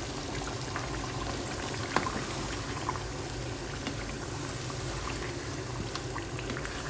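Chicken masala with tomato paste simmering and bubbling in a karahi, stirred with a spoon, with a few short knocks of the spoon against the pan, the loudest about two seconds in.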